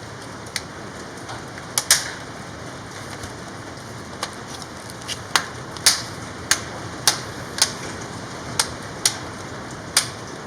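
Plastic screen bezel of a Lenovo V110-15ISK laptop being squeezed down onto the lid, its clips snapping into place one after another: about a dozen sharp clicks, coming roughly every half second from about four seconds in, over a steady hiss.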